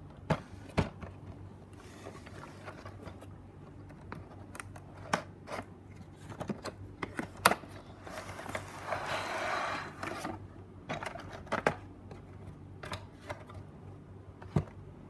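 A cardboard model box being handled and opened, with sharp taps and knocks of card and plastic, and a sliding scrape at about nine seconds in as the clear plastic tray is drawn out of the box.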